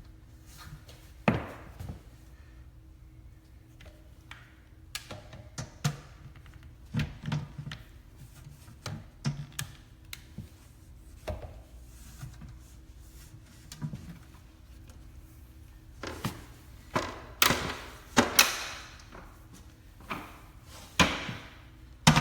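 Plastic toilet seat and its mounting hardware being handled and fitted: a series of scattered knocks and clicks, coming thicker and louder near the end.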